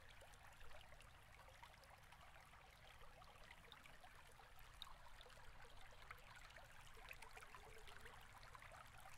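Near silence: faint room tone with a low hum and scattered soft ticks.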